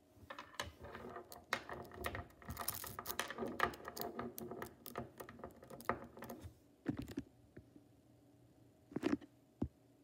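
Small magnetic metal balls clicking and clattering as they are pulled apart and snapped back together by hand: a dense run of rapid clicks for about six seconds, then a few single clicks near the end.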